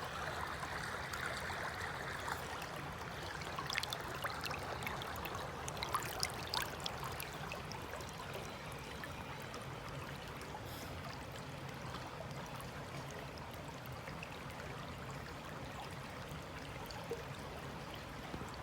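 Creek water running steadily, with a few sharp clicks between about four and seven seconds in.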